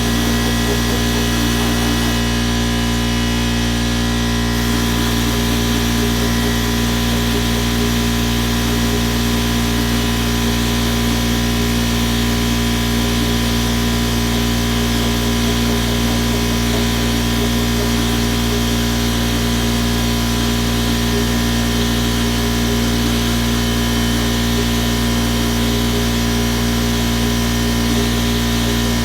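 Steady, unbroken machine running with several constant tones, from the compressed-air equipment driving the rubber eraser wheel used to strip the old emblem tape.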